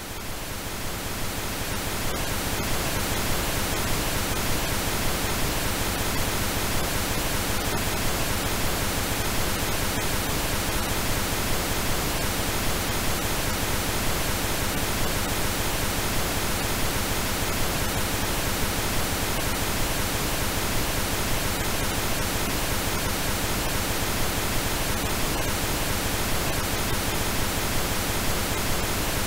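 Synthesized pink noise: a steady, even hiss across the whole range. It fades up over the first second or two, then holds level.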